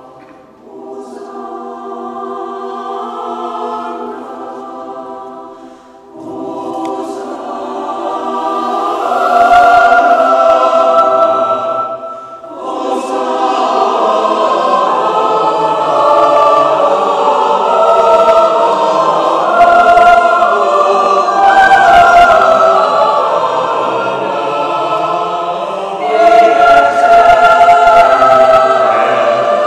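Mixed church choir of men and women singing a liturgical song. It begins softly and grows louder after about nine seconds, with short breaks in the sound about six and twelve seconds in.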